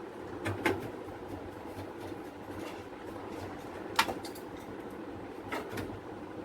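Light clicks and knocks of a desktop PC cabinet and its parts being handled as a motherboard is fitted inside, about five sharp taps with the loudest near the middle, over a steady background hum.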